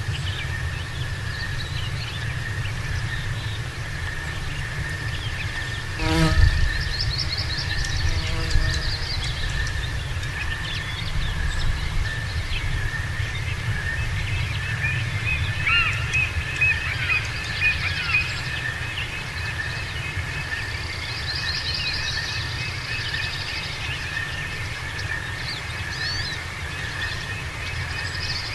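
Birds chirping and twittering over a steady high insect-like drone and a low rumble, most busily toward the middle. A single sharp knock about six seconds in is the loudest sound.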